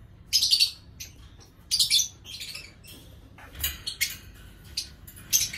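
Lovebird chirping: a series of short, shrill chirps in separate bursts, roughly one a second, the loudest near the start and just before two seconds in.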